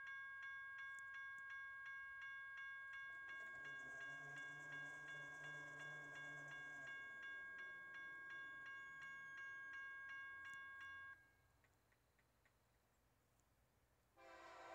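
Grade-crossing warning bell ringing steadily, a little over two strokes a second, then stopping about eleven seconds in. Just before the end, the approaching freight train's horn starts to sound.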